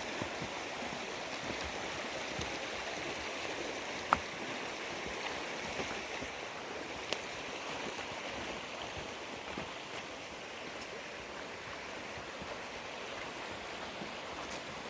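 Mountain creek water running steadily, an even rushing hiss, with two sharp clicks about four and seven seconds in.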